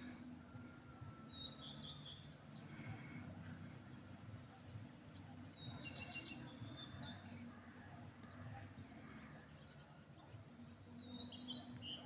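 Birds chirping faintly: three short flurries of high chirps, about a second in, near the middle and near the end, over a steady low background hum.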